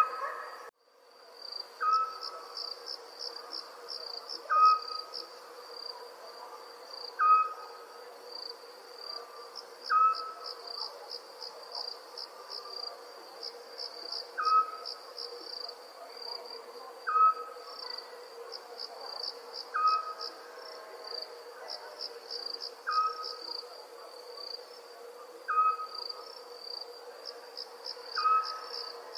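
Night ambience of crickets chirping in steady high pulsed trills, with a short single-note call repeating about every two and a half seconds. The sound cuts out briefly just after the start.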